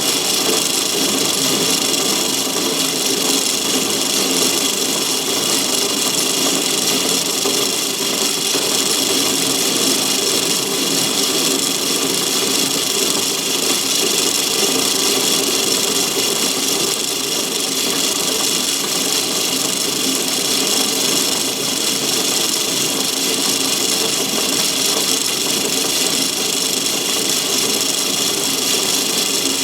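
Myford ML7 lathe running steadily while a parting tool cuts into a bar of homemade cast aluminium.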